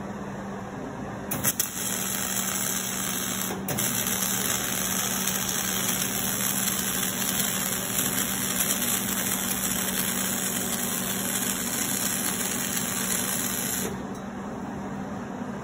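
MIG welding arc crackling steadily as a bead is laid on steel plate. It strikes about a second in, breaks off briefly, then runs for about ten seconds before stopping near the end, over a steady low hum.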